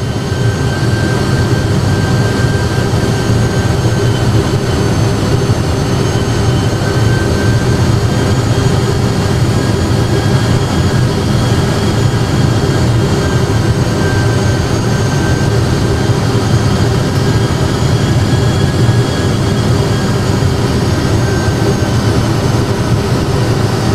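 Steady cockpit rumble of an Airbus A320 full flight simulator on approach: simulated jet engine and airflow noise, with a few faint steady whines over it.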